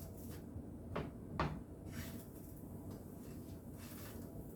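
Two short knocks a little under half a second apart, the second louder, over a low steady background.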